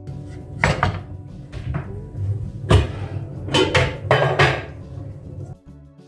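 Cookware clattering on a gas hob: a pan handled and set down on the metal grates, with five or so sharp knocks and scrapes.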